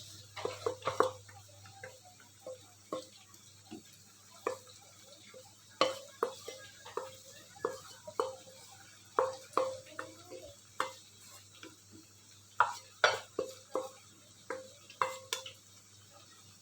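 A spoon stirring in a metal soup pot, knocking against its side in short, irregular clinks about one or two a second, each with a brief ring, as sautéed spice paste is stirred into the soto.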